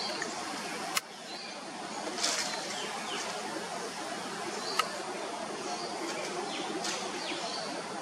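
Background ambience of short, high bird chirps every second or so over a steady low murmur, broken by a sharp click about a second in and another just before the middle.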